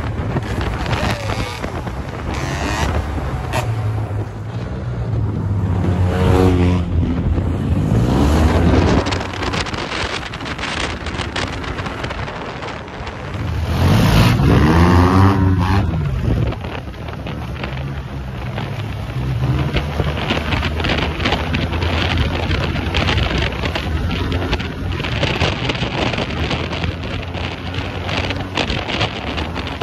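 Motorcycle and scooter engines running and revving, with wind buffeting the microphone. Two louder revs rise and fall in pitch, about a quarter of the way in and again around the middle.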